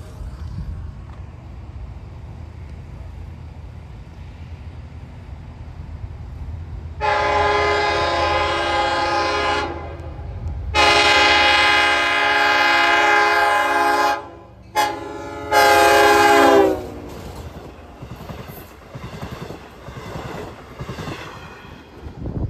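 Long Island Rail Road train's horn sounding the grade-crossing signal as it approaches: two long blasts, one short, and a final long one, over the low rumble of the oncoming train. After the horn, the train passes with rumbling and wheel clatter on the rails.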